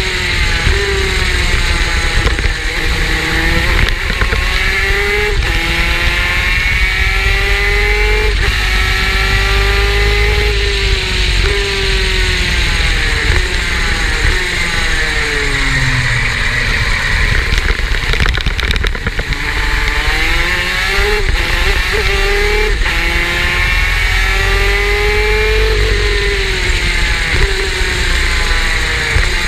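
Superkart's two-stroke engine at racing speed, revs climbing through the gears with sharp drops between shifts, falling away for a slow corner about halfway through and building up again. A heavy low rumble runs underneath throughout.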